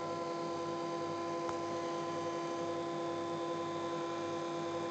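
Benchtop mini milling machine's spindle motor running steadily at speed with a drill bit in the chuck, not yet cutting: an even whine of several steady tones.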